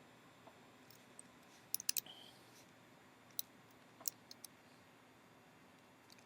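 A few faint, sharp clicks from working a computer: a quick run of three or four just before two seconds in, then single clicks a little later, over faint room hiss.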